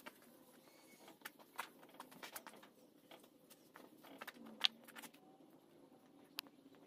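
Quiet scattered light clicks and taps from a rag being wiped over a steel frame, with a bird calling faintly a few times in the background.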